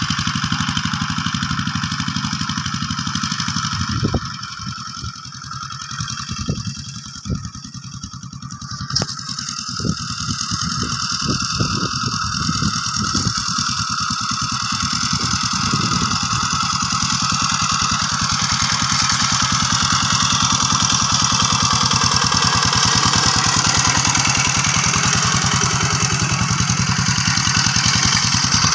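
Walk-behind hand tractor's engine running steadily under load as it hoes through rice-field mud. It is quieter for a stretch in the middle, with a few sharp knocks, then grows louder as the tractor comes close near the end.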